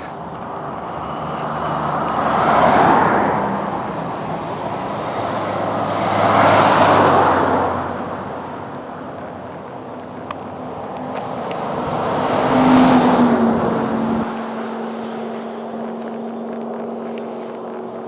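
Highway traffic passing close by: three vehicles, each swelling up and fading away, with tyre and engine noise. The last one, a motor home, carries a low engine hum that dips in pitch as it goes past.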